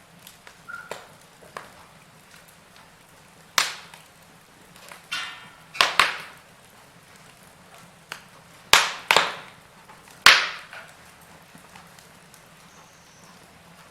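Burning wood fire crackling, with several loud, sharp pops from the logs scattered through it and quieter crackles in between.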